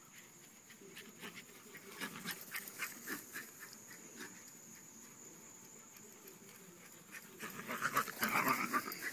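Dalmatians panting hard in rough play, in quick rhythmic breaths that grow louder and heavier near the end.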